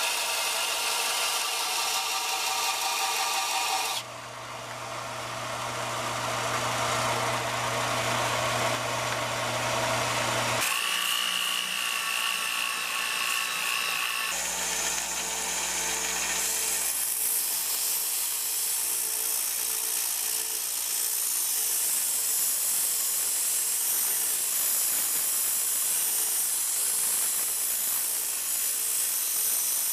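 Power tools sanding the rusted steel of a hand-forged draw knife, in a run of clips with hard cuts between them. For the first few seconds a bench belt sander grinds the blade. After the cuts a random orbital sander runs on it, and over the second half a small rotary tool gives a high, wavering whine.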